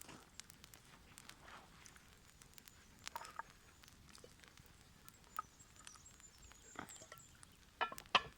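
Faint, scattered ticks and small snaps of twigs and kindling being handled while a campfire is laid over fire starters, with a few sharper clicks near the end.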